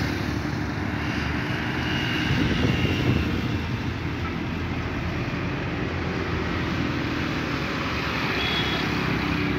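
Steady road traffic noise from passing vehicles on a wide city road: engines and tyres with a constant low rumble.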